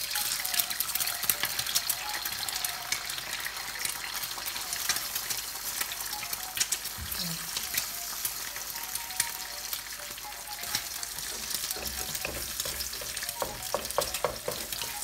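An egg frying in hot oil in a wok: a steady sizzle with frequent crackling spits of oil.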